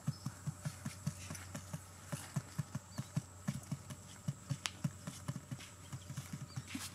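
Quail pecking at grain on a sheet of cardboard: a steady run of short, dull taps, about four to five a second.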